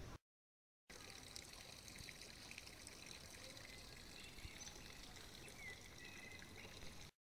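Faint steady trickle and splash of water from a stone street fountain. It comes in about a second in, after a brief dead-silent gap.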